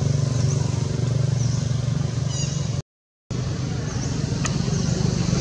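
Motorcycle engine running steadily with a low hum, with high chirps repeating about once a second over it. The sound cuts out completely for about half a second around three seconds in.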